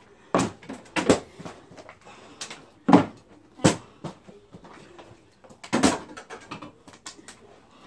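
A series of sharp knocks and thumps at irregular intervals, about six in all. Two come close together about a second in, and the loudest is near the start.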